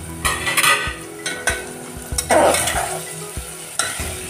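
Metal spatula stirring and scraping cooked-down onion-tomato masala frying in a metal pot, in several strokes with a few clicks of the spatula on the pot, the loudest stroke about halfway through.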